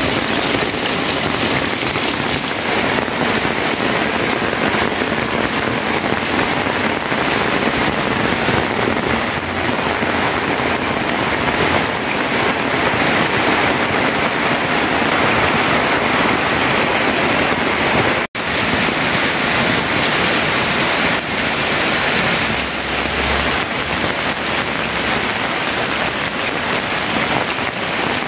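Steady heavy rain falling on corrugated zinc roof sheets and water-filled tarpaulin fish ponds. It cuts out for an instant about two-thirds of the way through.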